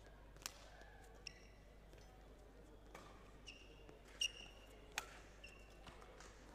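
Badminton rally: sharp cracks of rackets striking the shuttlecock, mixed with brief high squeaks of court shoes on the court mat. The loudest squeak comes about four seconds in.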